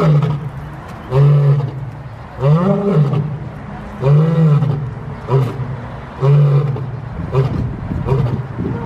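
Male African lion roaring: a run of about six deep grunting roars, each under a second long and one to two seconds apart, spacing out and weakening toward the end, as in the closing grunts of a roaring bout.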